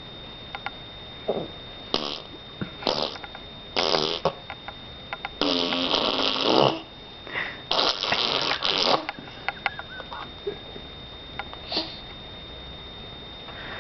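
A young child blowing raspberries with the tongue out to make fart noises: a string of about seven short, sputtering mouth farts, the two longest lasting about a second each, around six and eight seconds in.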